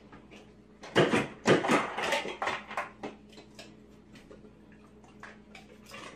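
Refrigerator door ice-and-water dispenser worked by a dog: a burst of clattering and knocks for about two seconds starting about a second in, then a few lighter clicks, over a faint steady hum.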